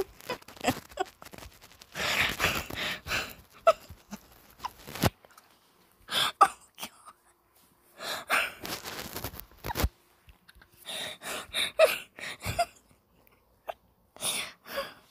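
A person's stifled, breathy laughter: several short bursts of snickering separated by quiet pauses.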